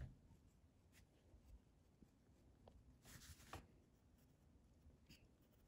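Faint scratch of a pencil on sketchbook paper, with one short stroke about three seconds in and a few light ticks; otherwise near silence.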